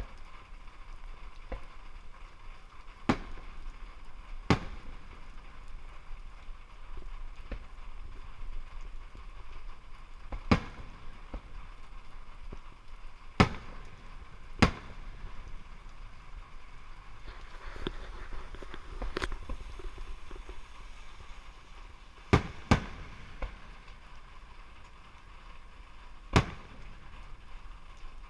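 Fireworks going off: about eight sharp bangs at irregular intervals, two of them coming as quick pairs, with a faint hiss partway through.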